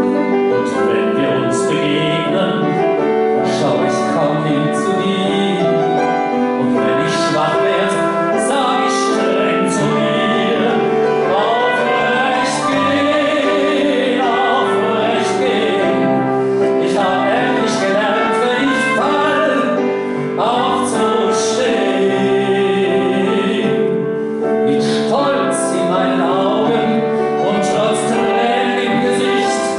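A man singing a song live, accompanied by grand piano and trumpet.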